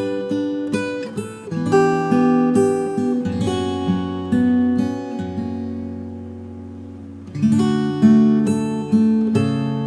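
Relaxing acoustic guitar music, plucked notes and chords. About three and a half seconds in, a chord is left to ring and fade, and the playing picks up again near seven and a half seconds.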